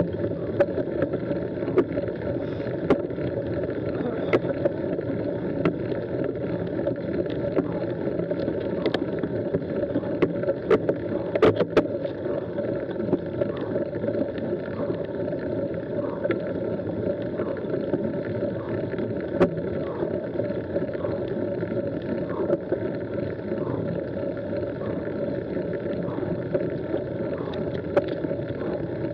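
Mountain bike tyres rolling slowly uphill over a gravel track, a steady dull rumble with scattered sharp clicks and rattles from stones and the bike, loudest about eleven seconds in.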